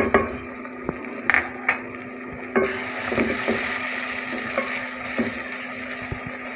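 Wooden spoon stirring chopped tomatoes and green chillies into onions frying in oil in a metal pot, knocking against the pot, with the sizzle of the oil growing louder about two and a half seconds in.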